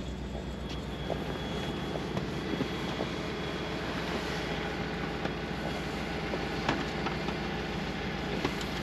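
A vehicle running steadily: a continuous low engine hum with road noise and a few light knocks and clicks.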